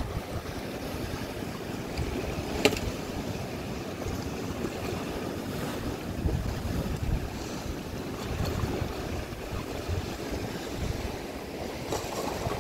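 Wind buffeting the microphone over the wash of sea surf on a rocky shore, with one sharp click about two and a half seconds in.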